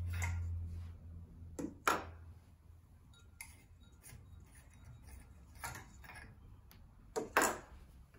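Light bulbs being unscrewed from a ceiling fan's light kit: scattered clicks and small glass clinks, the sharpest about two seconds in and again near the end, with a low hum in the first second.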